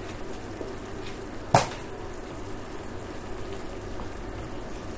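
Sliced porcini mushrooms simmering in a frying pan of olive oil and a little water, a steady bubbling sizzle, with one sharp knock about one and a half seconds in.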